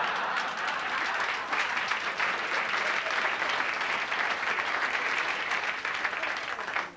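Comedy-club audience applauding a punchline: steady dense clapping that thins out just before the end.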